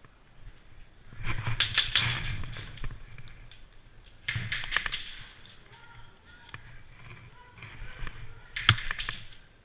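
Airsoft guns firing three rapid bursts of sharp clicks: a longer one about a second in, another near the middle, and a short loud one near the end.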